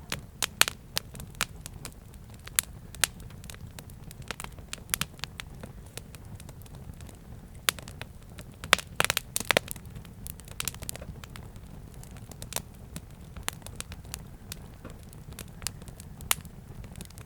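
Wood fire burning with irregular sharp crackles and pops, a quick cluster of pops about nine seconds in, over a steady low rumble.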